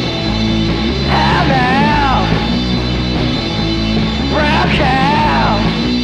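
Rock song by a band, steady bass notes underneath and a high wavering lead line that comes in twice, about a second in and again past four seconds.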